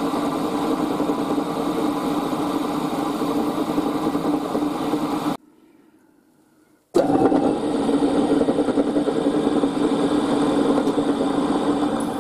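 Small milling machine's spindle motor running steadily while it drills and then taps a small hole in a brass block. It cuts out suddenly about five seconds in and starts up again about a second and a half later.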